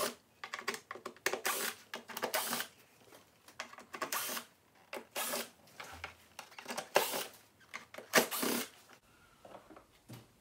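Cordless screwdriver running in several short bursts as it backs out the small Torx bolts on a plastic engine air filter housing cover, with clicks and rattles of the bit, bolts and cover in between.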